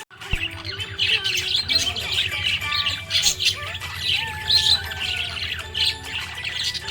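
Budgerigar chirping and squawking in a dense, rapid run of short high chirps, over a steady low hum.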